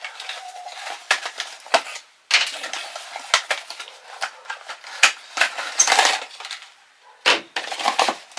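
A small cardboard product box being opened and handled: its flaps rustling and scraping in irregular bursts, with a short pause about two seconds in and a sharp knock near the end.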